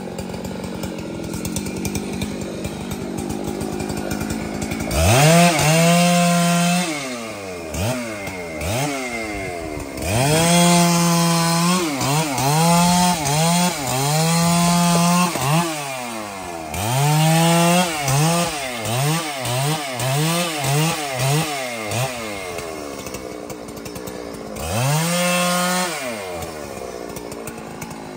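Husqvarna two-stroke chainsaw idling, then from about five seconds in revved hard and let back down again and again. Each rev rises sharply in pitch, holds briefly and falls away, with a run of quick short blips in the middle.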